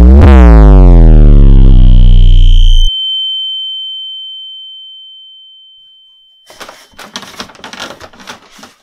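Loud synthesized film sound effect: a stack of tones sweeping steadily downward in pitch for about three seconds, cut off abruptly, leaving one high ringing tone that fades away over the next few seconds. Faint scattered clicks and rustles follow near the end.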